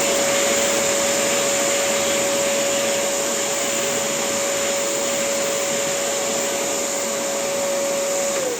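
A high-speed electric motor running at a steady whine over a loud rushing hiss, then winding down in falling pitch near the end.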